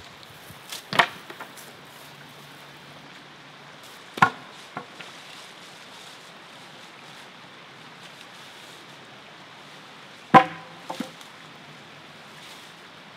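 Chestnut poles landing one after another on a paved road with hard wooden knocks: three main landings, each followed by a bounce or two.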